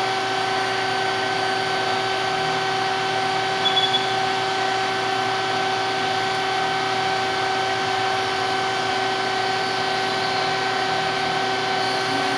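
Citizen L20 CNC Swiss lathe running under power: a steady machine hum with several constant tones over a noisy wash. A brief light tick comes about four seconds in.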